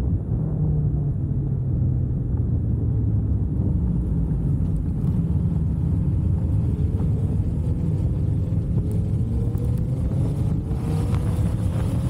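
Motorcycle engine running on the move, a deep steady drone with its note climbing gradually through the second half as it speeds up. Wind rushes over the microphone near the end.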